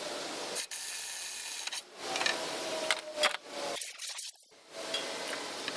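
Wood and hand tools being worked: scraping and rubbing with a few sharp knocks. The sound cuts out abruptly a few times.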